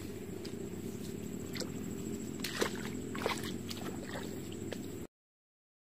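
Wind on the microphone in an open field: a steady low rumble with a few light clicks and rustles and a faint steady high whine. All of it cuts off abruptly about five seconds in.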